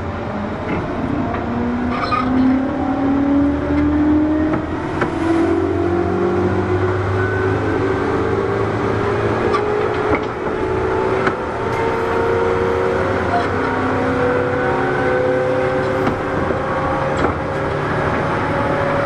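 Onboard running sound in the motor car of a JR 201 series electric train. The traction motors whine in several tones that rise slowly in pitch as the train gathers speed, over a low rumble of wheels on track with a few faint clicks.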